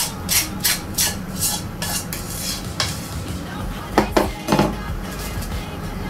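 Silicone spatula scraping brownie batter from a mixing bowl in quick strokes, about three a second, then three sharp knocks about four seconds in as the bowl is put down on the table.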